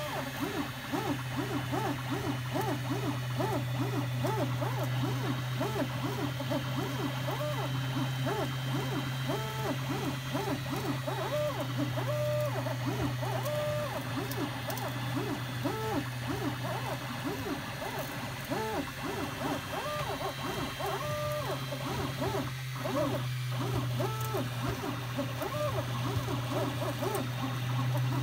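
FDM 3D printer running a print: its stepper motors give short rising-and-falling whines as the print head and bed move, in quick succession at first and more spaced out later. A steady low hum runs underneath.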